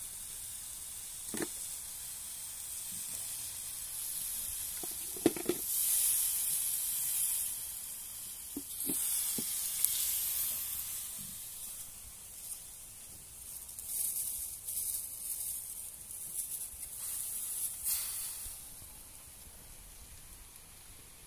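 Spiced broth cooking in a wok over a portable gas stove gives a steady high hiss that swells now and then. A few soft plops and knocks come as raw monitor lizard meat pieces are dropped in.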